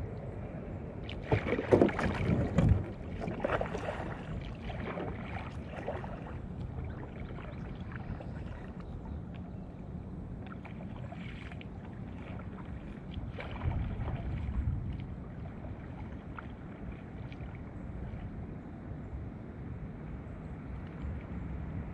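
Double-bladed kayak paddle strokes splashing in river water, loudest in the first few seconds, then fainter as the kayak moves away.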